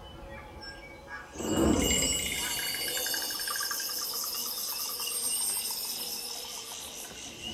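Dolby Atmos demonstration trailer soundtrack playing through a 7.2.4 home theater's speakers and heard in the room. A low whoosh swells in about a second and a half in, then gives way to a rainforest soundscape of rapid, pulsing insect calls.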